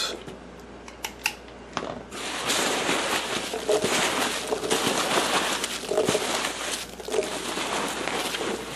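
Foam packing peanuts rustling and crunching as hands dig through them in a cardboard box. A few scattered clicks come first, then a continuous crackly rustle from about two seconds in.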